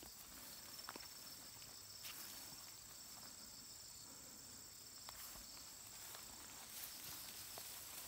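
Faint steady chorus of insects: a rapid high trill with a higher, even hum above it, and a few soft clicks.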